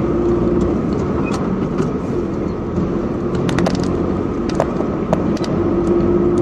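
Car driving along a road, heard from inside the cabin: steady engine and road noise with a low hum. A few light clicks come in the middle.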